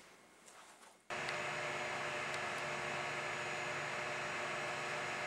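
Steady electrical hum with an even hiss, mechanical room noise, switching on abruptly about a second in and holding level after near-quiet room tone.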